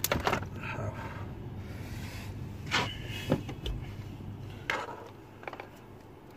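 Car wiring and plastic connectors being handled and wrapped by hand: scattered rustles and a handful of sharp clicks, the loudest about three seconds in.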